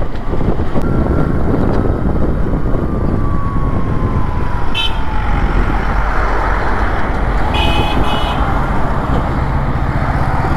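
Motorcycle being ridden over a rough road, its engine and road noise running steadily. A vehicle horn gives a brief toot about halfway through and a longer toot a few seconds later.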